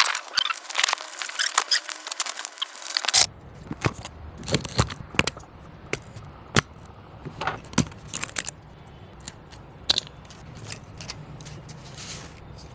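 A run of small clicks, taps and light rattles of hard objects being handled, with a busier, crisper patch in the first three seconds. A steady low hum comes in about three seconds in.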